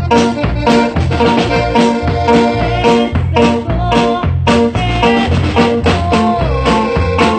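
Small live band playing an upbeat dance tune: a drum kit keeps a steady beat of about two hits a second under a low electric bass line and held melody notes.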